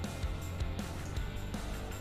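Background music with a steady low bass line.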